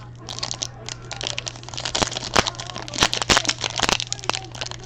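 Crinkling and crackling of a trading card pack's wrapper being handled and opened, with many irregular sharp crackles.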